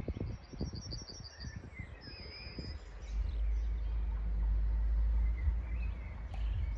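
Birds chirping, with a quick run of repeated high notes and a short high whistle, over irregular low buffeting. A deep, steady rumble swells about three seconds in, lasts a few seconds and is the loudest sound.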